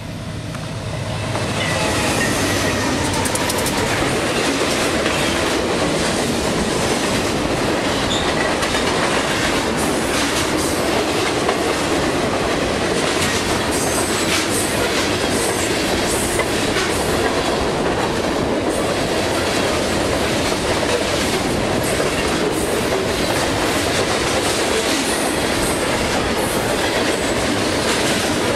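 A freight train passing close by. The sound builds over the first two seconds as the locomotives arrive, then a long string of tank cars rolls past with a steady clickety-clack of wheels over rail joints.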